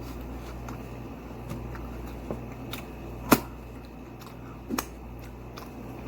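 A few sharp clicks over a steady low hum; the loudest click comes about halfway through, and a smaller one about a second and a half later.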